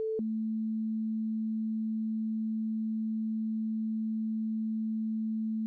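Synthesized sine-wave tone from the Oscalate app playing continuously. Just after it begins, it drops abruptly by about an octave, then holds steady at the lower pitch.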